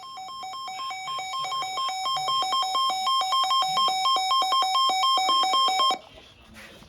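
Electronic emergency alert tone: a two-note electronic beep pulsing about five times a second. It grows louder over the first couple of seconds and cuts off abruptly about six seconds in.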